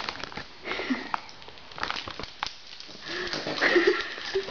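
Scattered crackling and clicking from Doritos chips and their bag being handled and crunched. A brief pitched vocal sound comes near the end.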